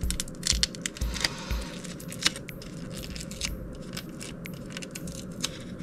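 Thin self-adhesive chrome mirror-finish foil and its backing paper crinkling and crackling as it is handled, an irregular run of sharp little clicks.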